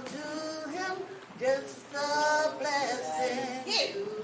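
A voice singing a melody, holding long notes and sliding between pitches.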